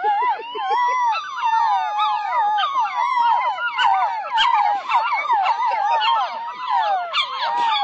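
A litter of young puppies whining and yelping all at once: many high cries rising and falling over one another, with a longer drawn-out cry among them early on.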